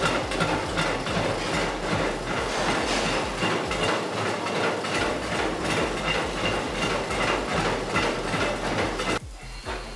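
Transport vibration test table shaking strapped, cartoned LED TVs: a steady, dense rattling clatter of the cartons and rig that stops about nine seconds in.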